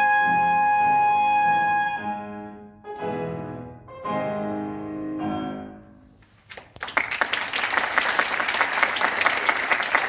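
Two trumpets and a grand piano play the closing chords: one long held chord, then a few shorter chords that ring away. About six and a half seconds in, audience applause starts and carries on.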